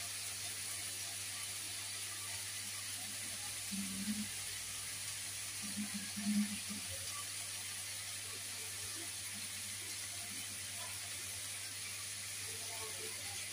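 Mixed vegetables frying in a wok, a steady sizzling hiss, with a few soft knocks about four and six seconds in.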